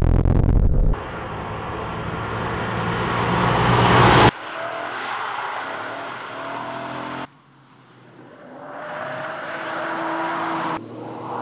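Sports car engines at speed on a race track, in short edited pieces that cut off abruptly several times. An engine builds up louder for about three seconds, then after the cuts a car approaches and grows louder.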